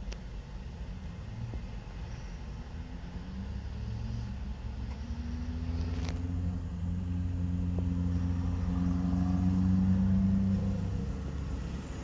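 A motor vehicle's engine hum passing by: it grows louder over several seconds to its loudest about ten seconds in, then fades, over a low rumble.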